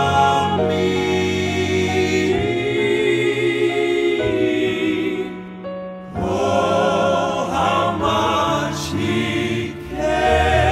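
Male southern gospel quartet singing long held notes in close harmony with vibrato. The sound dips briefly about six seconds in before a new phrase begins.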